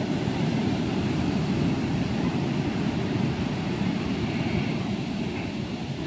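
Ocean surf: waves breaking and washing through the shallows, a steady low wash of water.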